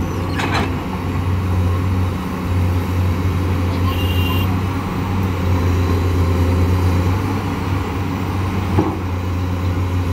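Diesel engines of Komatsu PC210 hydraulic excavators and a heavy tipper truck running under load in a steady low drone. A brief high-pitched tone sounds about four seconds in, and a short knock comes near the end.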